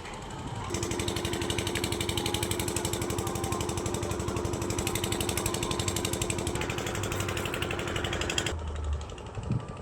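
Construction machinery running with a fast, even rattle and a steady hum, starting under a second in and cutting off abruptly near the end.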